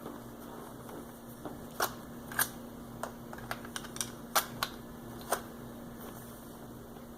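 Small electric fan running with a steady hum, a fan that sounds like it's about to die. Over it, about ten sharp, irregular clicks and taps from handling, starting about two seconds in and stopping a little past five seconds.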